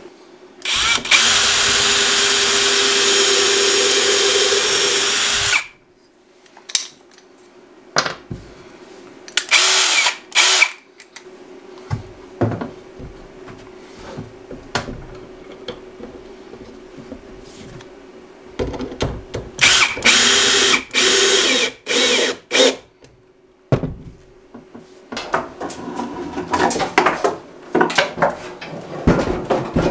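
Cordless drill driving screws into wood to fit a cabinet door hinge, running in several bursts: one steady run of about four seconds near the start, short bursts around ten seconds in, and a three-second run a little past the middle. Knocks and clatter near the end.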